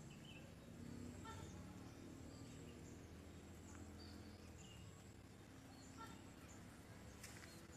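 Near silence: faint outdoor background hum with a few faint, short chirps scattered through it.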